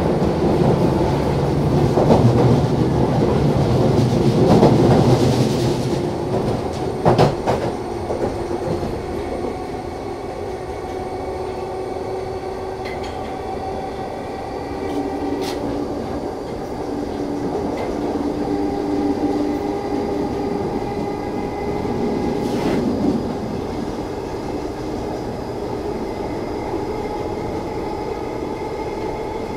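London Underground 1972 Stock train running between stations, heard from inside the car. Heavy rumble for the first several seconds, then a steadier run with motor tones that drift slowly in pitch, and a few sharp clicks from the wheels over rail joints.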